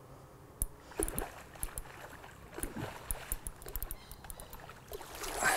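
A hooked carp splashing and thrashing at the water's surface as it is played in close, with a string of irregular splashes and slaps. The loudest splash comes near the end.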